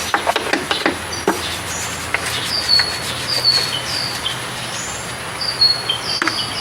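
Small birds chirping over and over in short, high, curved notes. A few sharp clicks or taps sound in the first second and a half.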